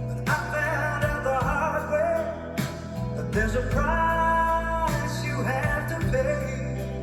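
A recorded song with a singer over guitar, bass and drums, played back as a sound test of a Yamaha X50A.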